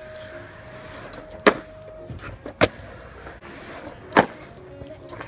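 Skateboard on a concrete skatepark: three sharp cracks of the board popping and slapping down, spread over a few seconds, over the low sound of wheels rolling on concrete.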